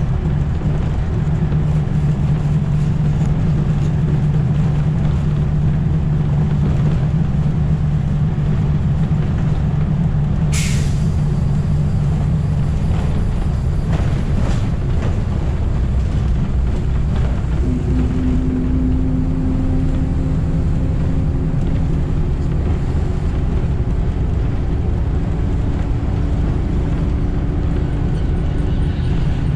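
City bus interior while riding: a steady low drone of the drivetrain and road noise. A sharp hiss of air from the air brakes comes about ten seconds in. A little past halfway the drone's hum shifts to a higher steady tone.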